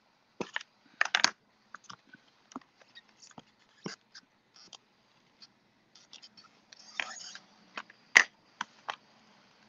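Stamp Perfect stamp positioning tool being handled while stamping a sentiment: its clear hinged lid is pressed down and lifted, giving scattered clicks and knocks. The loudest are a cluster about a second in and a sharp knock about eight seconds in, with a short scraping noise around seven seconds.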